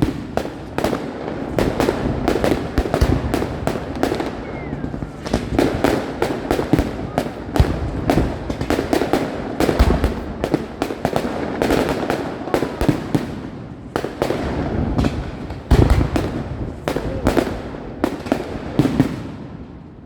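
Aerial fireworks going off in a dense barrage: a rapid run of sharp bangs and crackling, with heavier booms about halfway through and again about three quarters of the way through.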